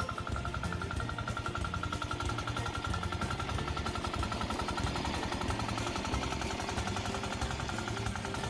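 Hand tractor's diesel engine running steadily under load with a fast, even knocking beat as it drags its implement through tall grass.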